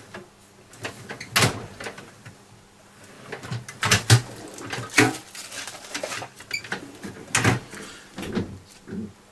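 Irregular knocks, clicks and rustling of objects being handled and moved about, as a roll of solder is fetched.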